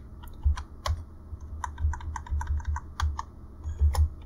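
Typing on a computer keyboard: a quick, irregular run of keystrokes, each a short click with a soft low thud.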